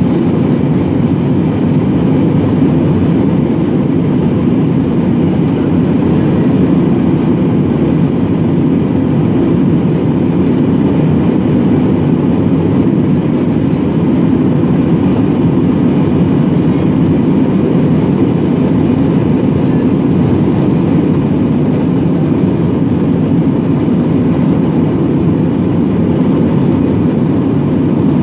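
Steady cabin noise of an Airbus A320-family jet airliner in flight: a constant low rumble of the jet engines and rushing air, heard from inside the passenger cabin.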